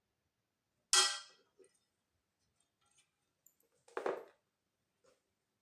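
Two metal clangs about three seconds apart, the first a sharp ringing one. This is metal knocking against metal while working at a starter gear jammed against the flywheel gear of a Briggs & Stratton engine.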